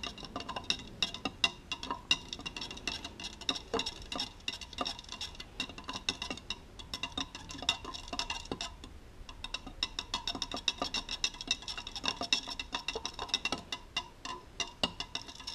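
A stirring stick tapping and scraping against the sides of a clear plastic cup while two-part polyurethane casting resin is mixed: a fast, uneven run of light clicks.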